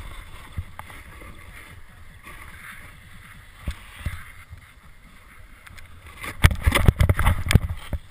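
Snowboard sliding over snow, with steady wind rushing on the helmet-camera microphone. A little over six seconds in comes a cluster of loud thuds and knocks as the rider drops onto his side and comes to a stop sitting in deep powder.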